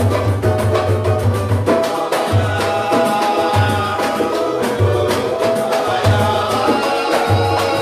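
Samba music played by a band: dense percussion over pitched instruments, with low bass notes pulsing about once a second.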